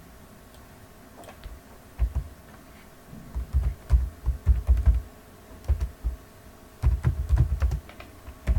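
Typing on a computer keyboard in short, irregular runs of keystrokes, each with a dull thud, starting about two seconds in.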